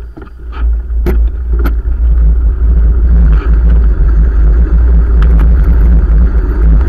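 Wind buffeting the microphone of a bike-mounted camera, building within the first two seconds into a loud, steady low rumble as the bike picks up speed. Two sharp knocks come about a second in.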